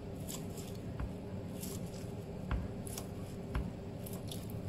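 Chef's knife chopping through soft food onto a wooden cutting board: a few sharp knocks at irregular intervals over a steady low hum. The cook says the knife is not sharp.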